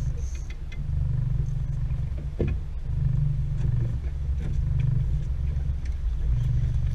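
Small outboard motor running steadily at trolling speed, a low rumble that swells and dips about once a second.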